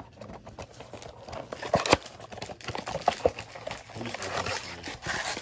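Cardboard trading-card blaster box being pried open by hand: scraping and rustling of the cardboard with irregular clicks as flaps and tabs give, including a sharp snap about two seconds in and another about three seconds in.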